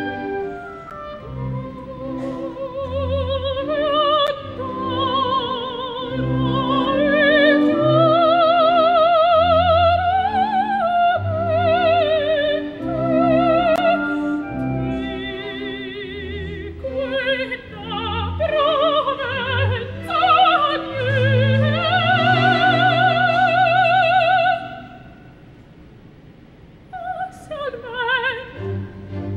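Operatic soprano singing an aria with wide vibrato over orchestral accompaniment. A long held note breaks off about 25 s in, leaving a brief hush of a couple of seconds, and then the voice comes back in.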